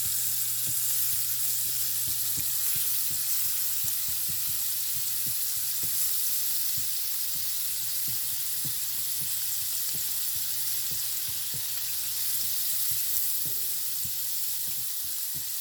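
Scallops searing in garlic butter in a hot pan: a steady sizzle with frequent small crackles and pops. A steady low hum runs underneath and drops out near the end.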